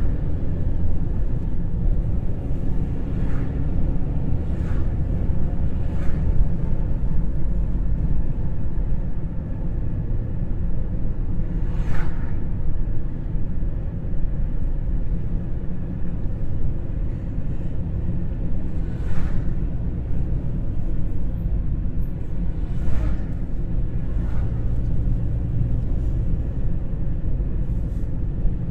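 A car driving, heard from inside the cabin: a steady low rumble of engine and road noise, with a few brief clicks or knocks along the way.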